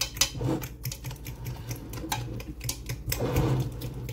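Utensil stirring and mashing a thick squash and sugar mixture in a metal pot: rapid, irregular clicks and scrapes against the pot.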